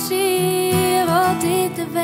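Music: a woman's voice sings long, slightly wavering notes in Frisian over a strummed acoustic guitar.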